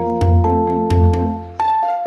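Background music: a light, bright tune on mallet-like instruments over a bass line and a steady beat, which drops out briefly near the end.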